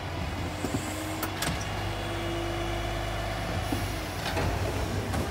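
A garbage truck's engine running steadily in the street, with a few knocks and rattles from a wheeled garbage bin being rolled out to the curb.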